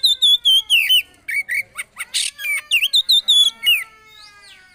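Poci songbird singing loudly and fast: a rapid run of short repeated chirps and sharply slurred notes. Near the end it drops to fainter sliding notes.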